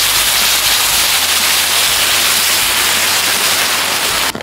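Yeopgi tteokbokki and its red sauce hitting a very hot, large black griddle pan and sizzling loudly in a steady hiss, with clouds of steam; the sizzle cuts off suddenly near the end.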